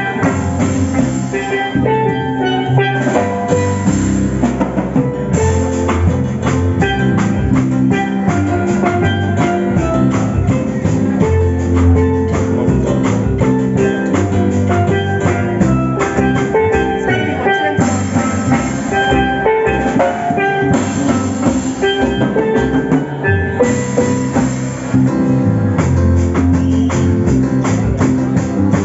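Music with a steady drum beat under a bright melody of quickly changing pitched notes.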